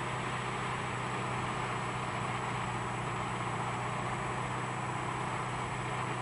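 Steady hum of sawmill machinery running at a constant pitch, with a low drone and no revving or cutting.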